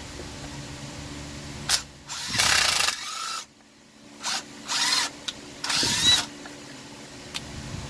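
Handheld power drill run in about five short bursts on the screws of a concrete saw, the longest under a second, over a steady low hum.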